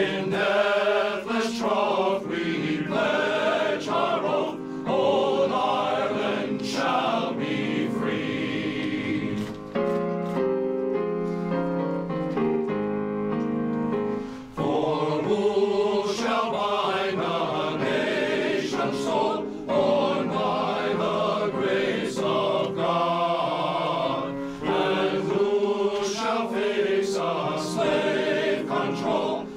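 Men's glee club singing in harmony, accompanied on an electronic keyboard. About ten seconds in, the moving vocal lines give way to a few seconds of held chords before the singing resumes.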